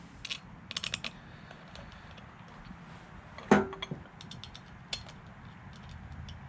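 Small metal clicks and taps as the float-bowl screws are started on an S&S Super E carburetor, with a quick run of clicks about a second in and a sharper clack about three and a half seconds in.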